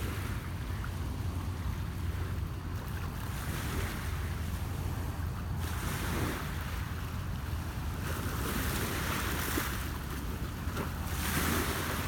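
Small lake waves lapping and washing onto shoreline rocks, swelling up several times, with a steady low rumble of wind on the microphone.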